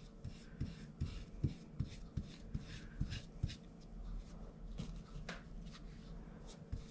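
Small brush scrubbing antique wax onto a rough wooden fence slat: faint, short scratchy strokes about two to three a second, with light taps among them.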